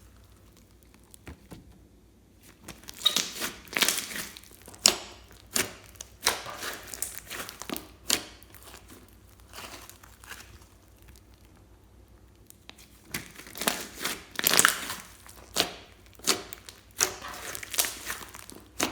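Slime being squeezed and pressed by hand, giving crinkly, crackling pops and squelches in irregular bursts, with short pauses between handfuls.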